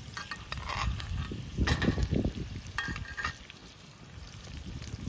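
Steaks sizzling in butter in a cast iron fry pan over a campfire, with a few light clinks and short scrapes of a utensil against the pan. A low rumble of wind on the microphone swells about two seconds in.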